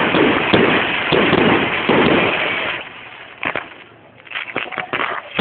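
Aerial fireworks bursting and crackling, a dense continuous crackle for the first three seconds. It then thins to scattered sharp pops and cracks before building again at the very end.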